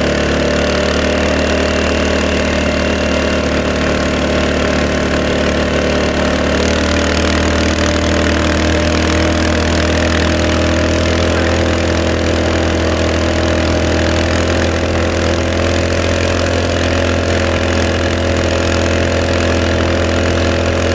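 Quad (ATV) engine running at a steady speed under load while towing a water skier, a constant low hum with its pitch shifting slightly about six and a half seconds in.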